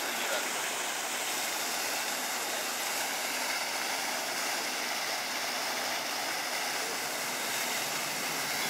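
Steady rush of fountain water jets splashing into a shallow pool, even and unbroken.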